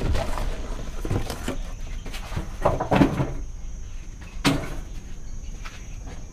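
Handling noise on a wooden workbench: a series of separate knocks and thuds with some rustling as a cardboard box and packed accessories are moved.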